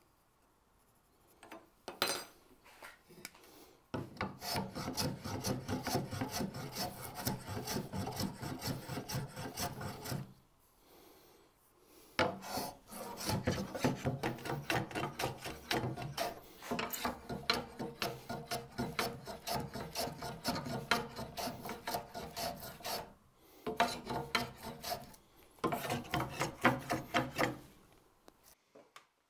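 A metal hand plane shaving a hickory handle: long runs of quick, rasping cutting strokes several seconds each, broken by short pauses.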